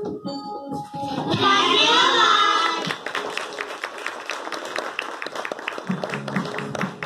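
A loud burst of voices about a second in, then an audience clapping, with music playing underneath and a repeating low beat starting near the end.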